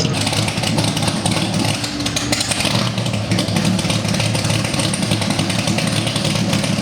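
Broadspeed Jaguar XJ12C race car's 5.3-litre V12 running loud and steady, with a rough, clattery edge and no revving.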